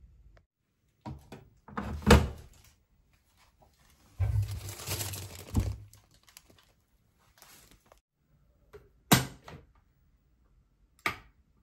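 Kitchen handling sounds: a few knocks about two seconds in, a plastic bread bag crinkling for about two seconds, then two sharp clicks near the end.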